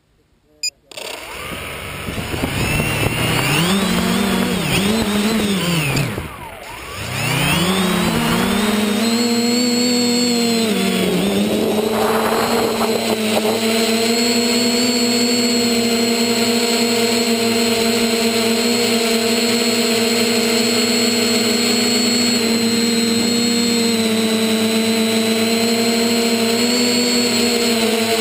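Motor and propeller of a radio-controlled FPV aircraft spinning up about a second in. Its pitch rises and falls with the throttle for several seconds and drops briefly around six seconds in, then it runs at a steady pitch.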